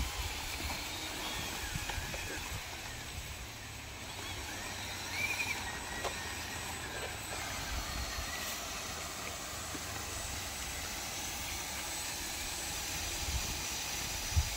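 Radio-controlled model dump truck and bulldozer working: faint whirring of their small electric motors and gears over a steady hiss.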